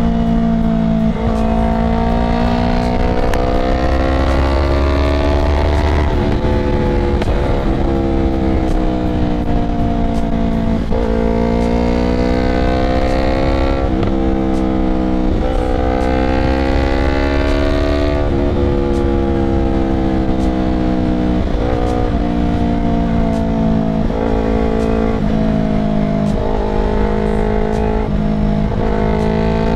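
Yamaha YZF-R3's 321 cc parallel-twin engine through a full Akrapovic exhaust, heard from the rider's seat while riding. The pitch climbs under throttle and falls as the throttle is rolled off, broken by a gear change every few seconds. In the last third come several quicker gear changes.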